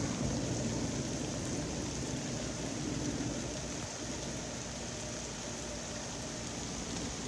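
Steady rain falling in a thunderstorm, a constant even hiss that eases slightly in the first few seconds and then holds.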